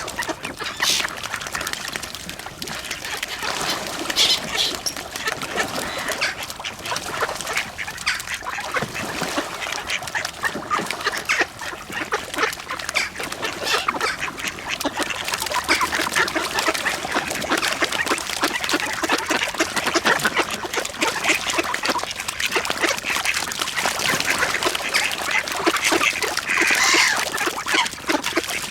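A large flock of mallard ducks quacking all at once while feeding, many calls overlapping into a dense, continuous din.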